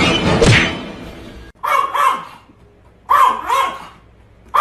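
Background music cuts off about one and a half seconds in. Then an animal gives short barking calls, a pair of rising-and-falling cries twice, about a second and a half apart.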